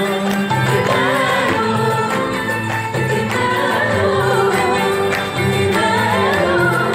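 Live Arabic ensemble music: a woman singing an ornamented melody over qanun, oud and double bass, with a low bass line repeating under the voice.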